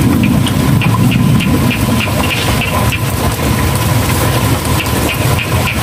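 Small engine running steadily at idle, over which a high-pitched ticking repeats several times a second, pausing for about two seconds mid-way.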